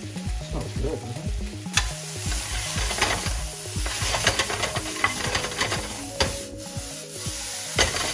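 Lion's mane mushroom pieces sizzling in a hot nonstick skillet while a spatula stirs and scrapes them around the pan. The sizzle briefly dies down about six and a half seconds in, then there is a sharp knock near the end as the pan is tossed to flip the mushrooms.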